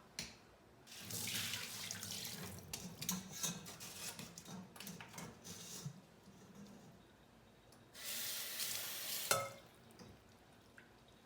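Kitchen tap running into a sink while dried barberries are rinsed in a strainer, with small clatters, for about six seconds. After a short lull the water runs again and stops abruptly with a knock.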